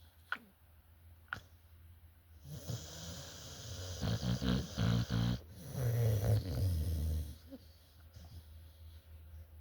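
Snoring: after a couple of seconds of quiet breathing, a long rattling snore comes in at about two and a half seconds, followed by a second breath that fades out near seven and a half seconds.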